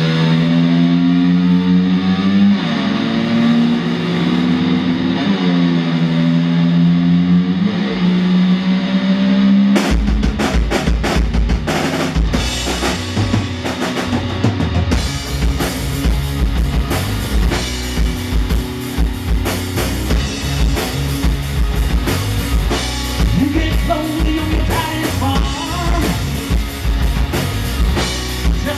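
Live rock band: for about ten seconds an electric guitar holds sustained notes with sliding, gliding pitch bends, the slide-guitar intro imitating a revving motor scooter. Then drums, bass and guitars come in together on a steady rock beat.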